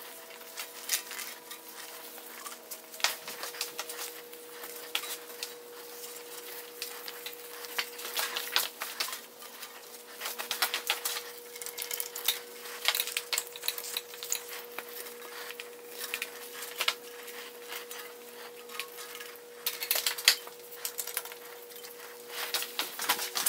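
A rag rubbing and wiping down a bicycle frame held in a repair stand, with irregular light clicks and knocks as the frame and stand are handled. A steady faint hum runs underneath.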